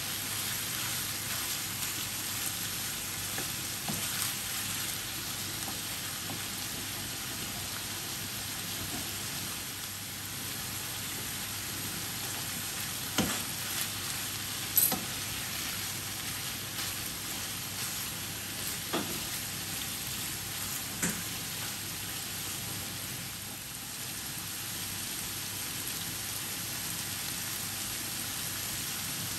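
Strips of beef and minced garlic sizzling steadily in a hot pan while being stirred with a wooden spatula, with a few sharp knocks of the spatula against the pan.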